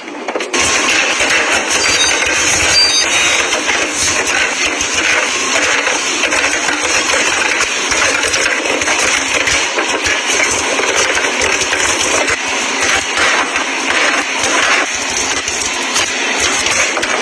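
Bottles and drink packs clinking and rattling as they are set onto refrigerator shelves, a dense run of small knocks and clatter.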